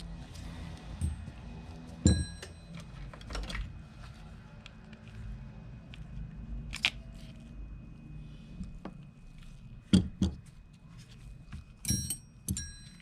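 Small metal parts and tools clicking and knocking against each other as a corroded, seized spinning fishing reel is worked apart by hand: a handful of sharp clinks, several with a short metallic ring, the loudest pair about ten seconds in and another pair near the end.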